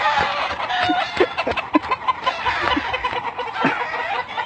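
Chickens clucking, with many short calls one after another.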